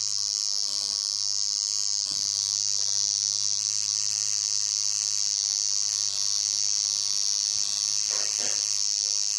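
Tattoo machine buzzing steadily as the needle works ink into skin.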